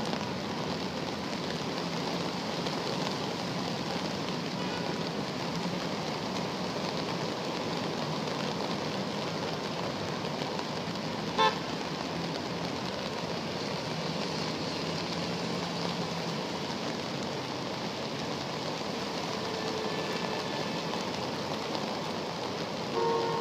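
Steady wash of heavy rain and traffic moving through deep floodwater. A car horn gives one short, loud toot about halfway through, and another horn sounds near the end.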